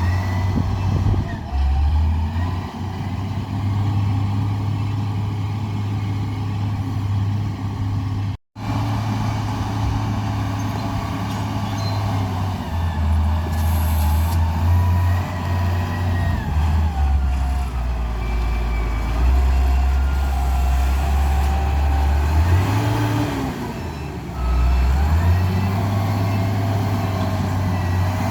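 Heavy truck or road-machine engine running and changing speed under load, with a whine rising and falling in pitch above it. The sound cuts out completely for an instant about eight seconds in.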